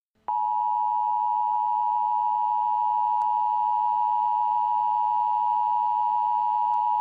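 Emergency Alert System attention signal: a loud, steady electronic tone just below 1 kHz that comes in about a third of a second in and holds without a break.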